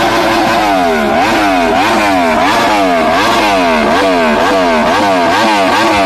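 Loud motorcycle engine being revved over and over, its pitch rising and falling again and again, the blips coming quicker toward the end.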